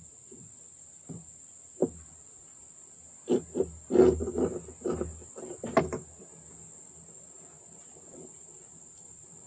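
Handling noise in a small aluminium boat: a few dull knocks and rubbing as fishing line is coiled by hand, bunched between about three and six seconds in.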